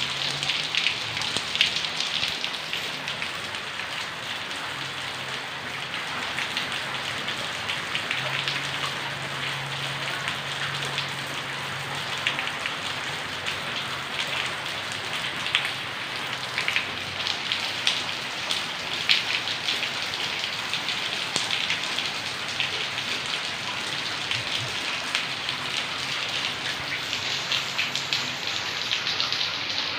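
Heavy rain falling steadily, with a dense patter of sharp drop impacts over a constant hiss.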